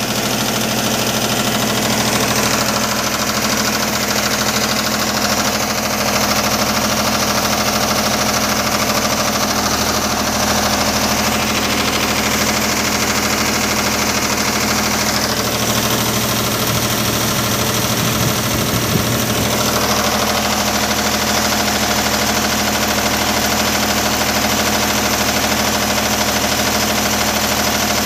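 Diesel engine of a 30 kVA generator set running steadily under electrical load. Its note wavers for a few seconds about halfway through.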